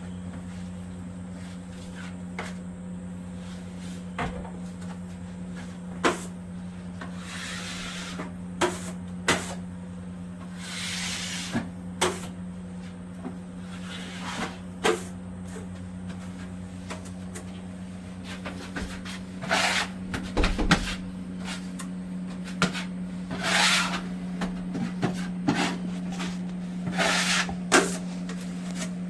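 Drywall taping work: scattered knocks and clicks of tools, with several brief scrapes of a taping knife working tape and joint compound, over a steady low hum.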